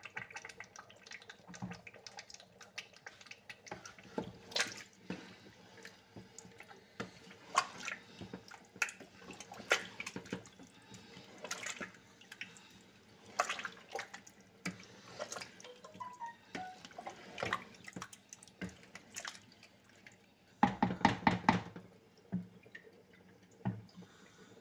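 Pot of thick tomato stew with tripe and meat being stirred: scattered wet plops and clicks, with a quick run of louder knocks near the end.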